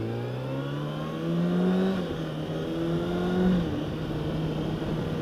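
Motorcycle engine of a 2013 Kawasaki ZX-6R (636), an inline-four, accelerating through the gears. The revs climb, drop at an upshift about two seconds in, climb again, drop at a second upshift about a second and a half later, then hold steady at cruise.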